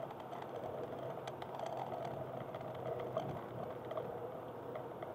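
Cabin noise of a Honda Accord Type-S wagon driving on a wet track: a steady engine hum under road and tyre noise, with scattered light ticks and rattles.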